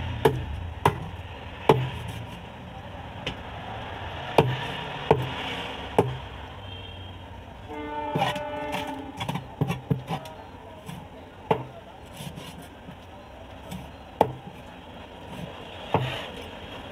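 Heavy cleaver chopping through pomfret pieces into a wooden chopping block: about a dozen sharp chops at irregular intervals over a steady street-noise background. A horn sounds for about two seconds around eight seconds in.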